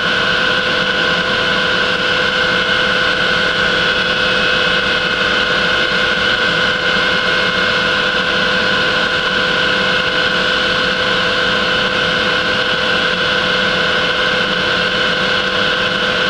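Milling machine spindle running steadily with an end mill skimming the faces of 3/4-inch nuts clamped in the vise: an even hiss with two held tones.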